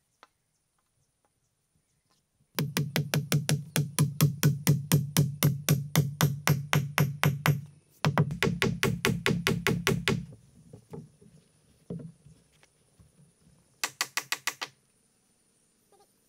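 Rapid, evenly spaced knocking, about six strikes a second, in a run of about five seconds and a shorter run right after it, with a brief burst of the same near the end.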